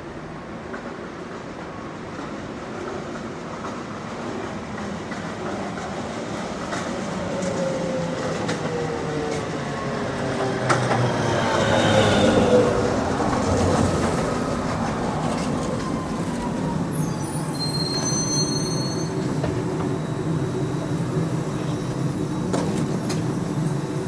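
A streetcar approaching on its rails, growing louder to a peak about halfway through, with its wheels squealing in gliding tones, then running on as a steady rumble.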